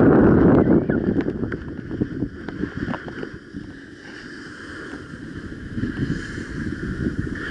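Wind rushing over the microphone of a skier's action camera during a downhill ski run, with skis scraping and clattering on hard, crusty snow in the first few seconds. The rush dies down through the middle and builds again near the end as speed picks up.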